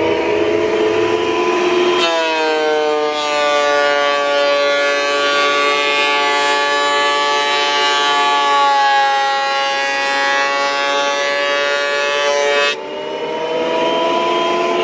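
Benchtop thickness planer running with a steady motor whine. About two seconds in, the pitch drops as an oak plank feeds through and the cutterhead takes off its old finish. The pitch rises back near the end as the board clears the machine.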